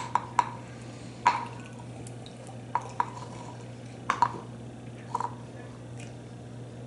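Light taps and clicks, about ten of them, each with a brief ring, scattered a second or so apart over a faint steady hum.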